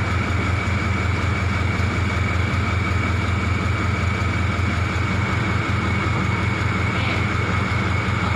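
Machinery running steadily: a constant low hum with a thin high whine held on one pitch.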